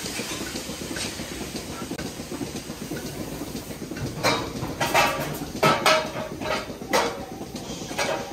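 Milking parlour machinery running with a steady hiss, then, from about four seconds in, a series of irregular sharp metallic clanks and clatters, some briefly ringing.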